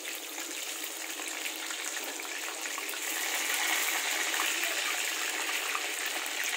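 Chicken pieces deep-frying in hot oil in a wok: a steady sizzle that grows a little louder about three seconds in.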